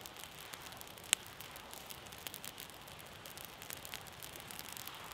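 Small stick campfire crackling, with scattered light pops and one sharp, loud pop about a second in.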